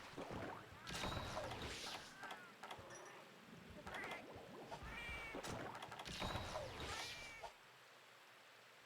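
An animal calling repeatedly: a string of short, pitched calls, several of them sliding down in pitch, one about every second.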